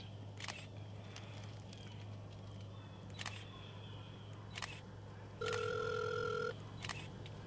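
Camera shutter clicking four times, several seconds apart, as photos are taken. About five and a half seconds in, a steady electronic beep lasts about a second.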